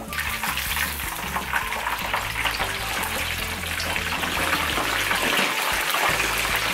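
Breaded chicken, put into the hot oil straight from the freezer, deep-frying in a pan: a dense, crackling sizzle of bubbling oil that grows a little louder.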